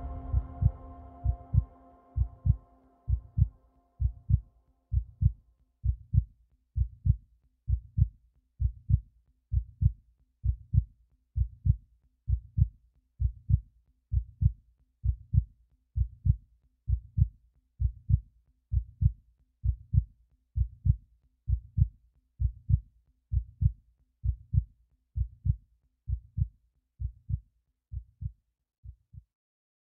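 Heartbeat sound effect: a steady run of low thumps, about one and a half a second, growing fainter near the end and then stopping. The last notes of music die away in the first few seconds.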